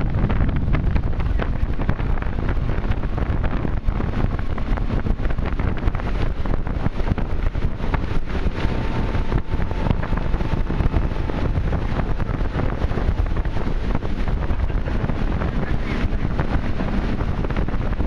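Wind buffeting the microphone on a moving motorboat, over the engine's steady running and the rush of its wake.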